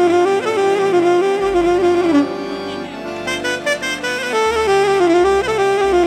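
Live band playing an instrumental break in a Romanian folk song: a wind instrument leads a quick, ornamented melody over a changing bass line.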